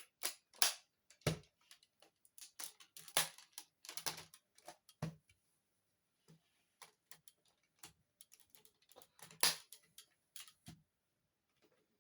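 Hard plastic parts of a DaikaiOh toy figure clicking and clacking as they are moved and snapped into place while it is transformed into its lobster mode. Irregular clicks and knocks, the loudest clack about nine and a half seconds in, with a short pause around the middle.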